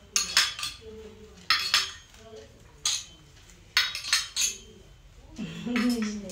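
Brass puja hand bell rung in four short bursts of bright metallic clinks, with a brief voice near the end.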